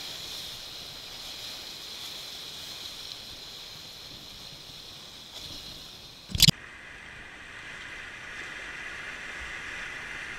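River water rushing steadily around a kayak, a continuous hiss. About six and a half seconds in comes one sharp, loud knock, and after it the water sounds duller.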